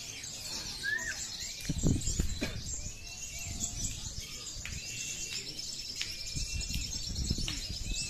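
Many caged kolibri ninja sunbirds singing at once: overlapping high chirps, trills and short whistles. A low thump or two sounds about two seconds in.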